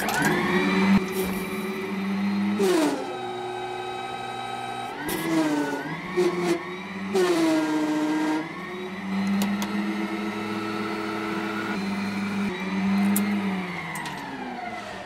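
Whine of an electric mini loader's motor and hydraulic pump working the bucket with a heavy load of sand. The pitch drops and rises several times as the load changes, with a few knocks, and winds down near the end.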